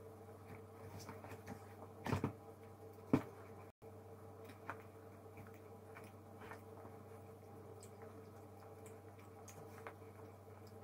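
Quiet room tone with a steady low electrical hum, broken by a few light knocks about two seconds in and one sharper click about three seconds in. The sound drops out for an instant just before four seconds in.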